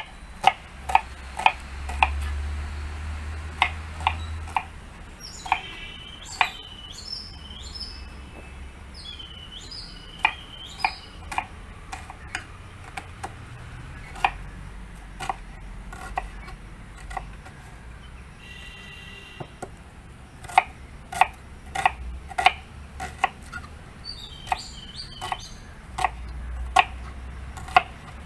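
A kitchen knife chopping vegetables on a cutting board, sharp knocks coming in irregular runs of a few strikes a second. Small birds chirp in between.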